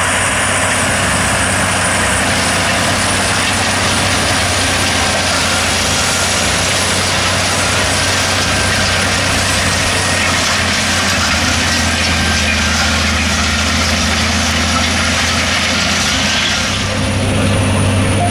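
John Deere 9530 four-wheel-drive tractor's six-cylinder diesel running steadily under load while pulling a cultivator through stubble. Near the end it becomes a louder, deeper hum heard from inside the cab.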